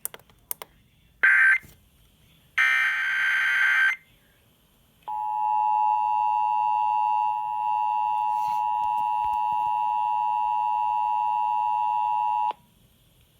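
Emergency Alert System broadcast over FM radio. First come two short bursts of the SAME digital header, a harsh data screech, then the EAS two-tone attention signal sounds steadily for about seven seconds and cuts off abruptly.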